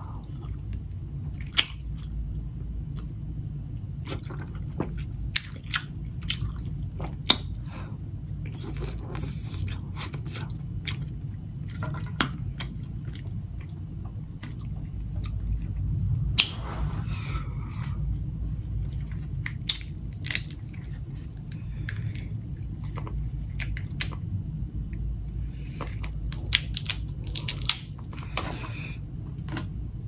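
Close-miked eating sounds: chewing and lip-smacking on crab meat, with many sharp clicks and cracks from crab shell being handled and broken, over a steady low hum.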